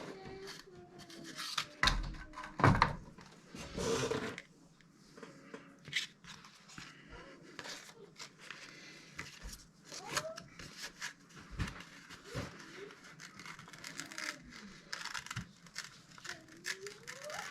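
Sanding a handmade diamond painting pen: irregular scratchy rubbing strokes, a few louder ones in the first four seconds.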